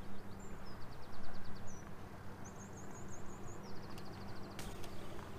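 Small songbirds singing: several high, quick trills and a run of repeated rising chirps, over a steady low background noise. Two sharp clicks come near the end.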